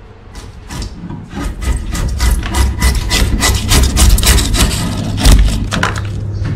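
Steel chisel scraping dried foamy glue squeeze-out off the edge of a wooden board, in quick, rough, repeated strokes starting about a second in.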